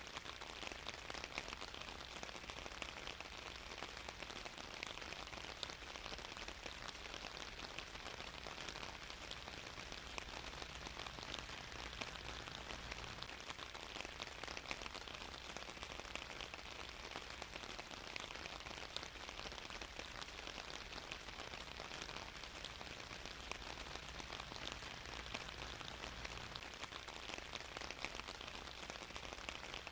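Steady rain falling and pattering on a surface, a dense even hiss of many small drop ticks.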